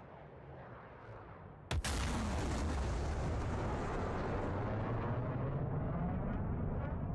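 Fighter jet flyby: faint wind-like noise, then a sudden sharp crack about two seconds in and a loud, steady jet roar with a deep rumble that lasts to the end.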